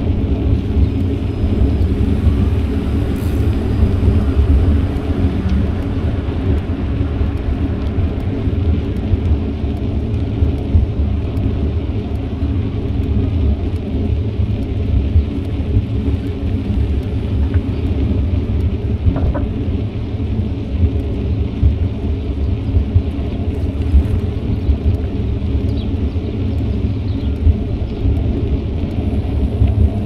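Steady low rumble of wind buffeting an action camera's microphone and bicycle tyres rolling on pavement while riding.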